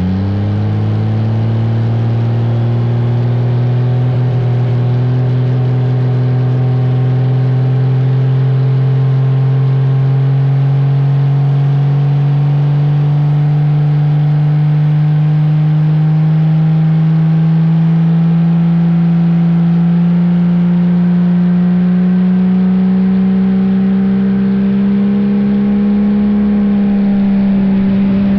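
Dodge Ram's turbocharged Cummins diesel engine at full throttle under load during a truck pull. Its pitch climbs slowly and steadily as the engine gains rpm down the track, with a slight dip near the end.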